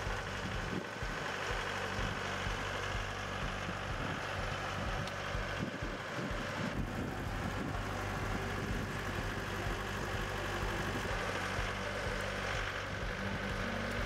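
Mahindra compact tractor's diesel engine running steadily at idle.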